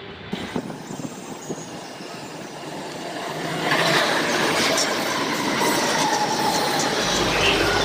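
Delhi Metro train passing close by at speed. Its rush and rumble swell sharply about three and a half seconds in and stay loud, with a thin steady whine on top.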